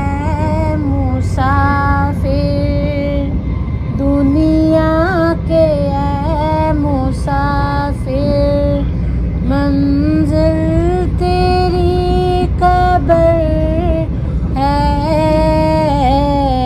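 Background music: a woman singing a slow melody in long held notes with sliding ornaments, over a steady low hum.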